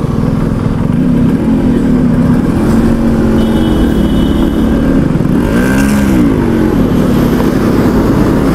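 Yamaha RX100's two-stroke single-cylinder engine running as the bike is ridden slowly across traffic, its pitch rising and falling with the throttle, with a dip and pick-up about six seconds in.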